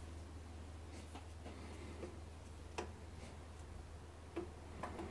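Faint light clicks and ticks as a lathe faceplate carrying clamped work is turned by hand against a dial test indicator, over a steady low hum.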